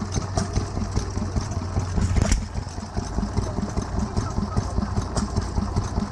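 Lister D single-cylinder stationary engine running at a steady chug, belt-driving a small water pump, with one sharp click a little past two seconds in.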